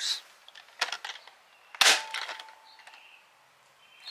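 Sharp plastic clacks of a spring-powered foam dart blaster (Adventure Force Aeon Pro) being handled and fired, the loudest about two seconds in. A faint steady tone follows it for about a second.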